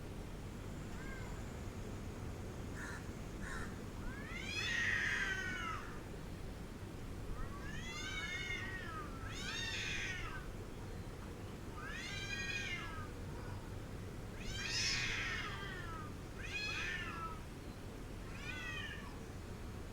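Angry cat yowling: about seven drawn-out calls of roughly a second each, one every two seconds or so, each rising and then falling in pitch.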